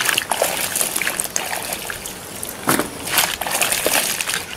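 Hands turning and tossing cut bottle gourd cubes in a large metal bowl: an irregular run of clattering and rustling as the pieces knock against each other and the bowl.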